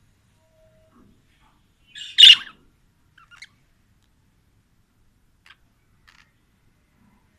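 Pet budgerigar giving one loud, harsh squawk about two seconds in, followed by a few faint short chirps.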